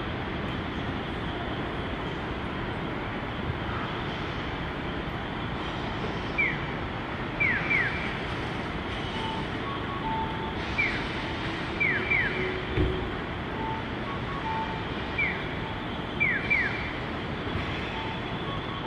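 City traffic noise with an electronic pedestrian crossing signal. From about six seconds in, it sounds a short falling chirp followed by a quick double chirp, repeating about every four seconds, with shorter, lower two-note tones in between.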